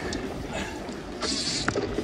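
Steady low rumble of wind and water noise on a small open boat at sea, with a short hiss a little past halfway.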